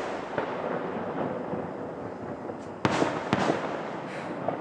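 Aerial fireworks bursting at a distance: a rolling rumble dies away, then two sharp bangs about half a second apart about three seconds in, followed by crackling and a long tail as the report echoes off surrounding hillsides.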